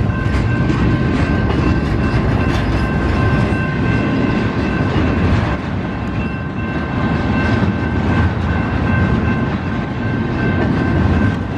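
Doublestack intermodal well cars of a freight train rolling past slowly upgrade: a loud, steady rumble of steel wheels on rail, with a steady high ringing tone running through it.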